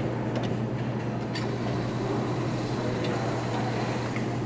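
Claw machine running during a grab attempt: a steady low hum over mechanical noise, with a few faint clicks.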